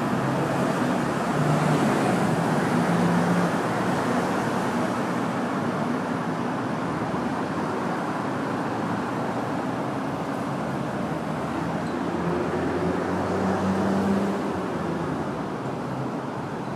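Steady street traffic of cars and taxis, with the hum of an engine swelling as a vehicle passes about two seconds in and again near the end.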